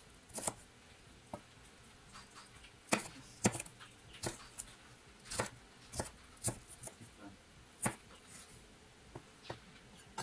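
Chef's knife chopping red bell pepper on a wooden cutting board: separate sharp knocks of the blade on the board at an unhurried, irregular pace, roughly one or two a second.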